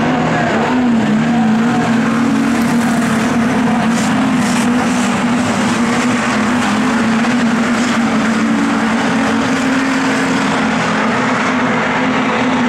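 Dirt-track race car engine running hard at speed, with a steady engine note that rises slightly about a second in and then holds.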